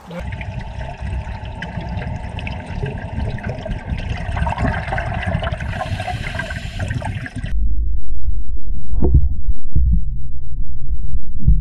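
Pool water sloshing and bubbling around people wading and pushing a motorcycle down into it. About seven and a half seconds in, the sound turns muffled and low, as heard underwater, with deep dull thumps and bubbling.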